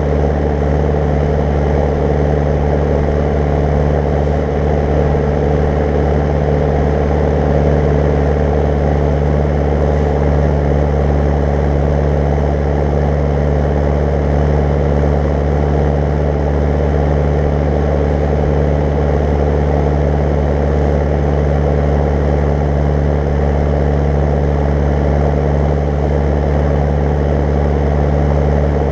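Zetor 10145 tractor's diesel engine running steadily at road speed while towing a loaded 8 m³ slurry tanker, a constant loud drone with no change in revs.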